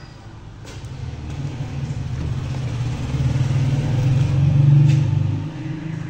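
Low engine rumble of a motor vehicle, swelling steadily, loudest about five seconds in, then fading.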